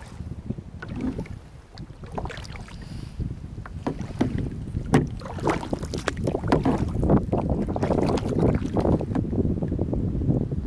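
Kayak paddle strokes splashing and dripping in lake water, in irregular short strokes, with wind buffeting the microphone in a low rumble that grows stronger about halfway through.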